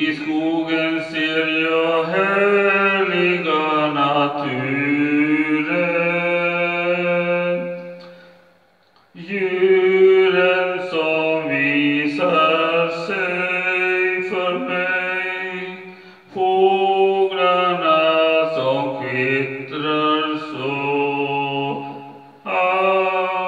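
A man singing a slow Swedish praise song (lovsång) into a handheld microphone, in long held notes, with short breaks between phrases about eight seconds in, near the middle and near the end.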